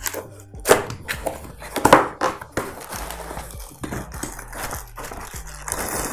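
Cardboard boxes being handled and their flaps pulled open: scraping and knocking of cardboard, with two sharper knocks about a second and two seconds in. Near the end there is a rustle of plastic wrapping, all over quiet background music.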